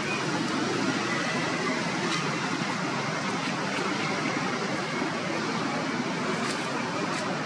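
Steady rushing background noise, even throughout, with a few faint ticks about two seconds in and near the end.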